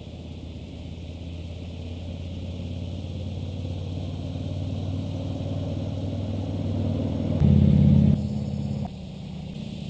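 A motor vehicle driving by, its engine growing steadily louder as it approaches, loudest about seven and a half seconds in, then dropping off sharply a second or so later.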